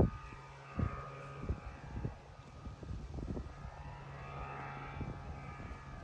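Thruster microlight's engine and propeller droning steadily overhead on its landing approach, a little stronger in the second half. Low thumps of wind buffet the microphone throughout.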